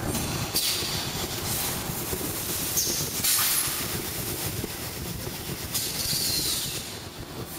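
Fully electric extrusion blow molding machine running, with a steady mechanical rumble and bursts of air hiss about every two and a half seconds.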